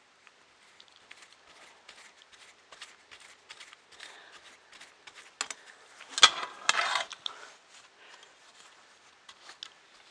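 Small parts of a 3D printer kit being handled and fitted by hand: light clicks, taps and rubbing, with a louder clatter about six seconds in.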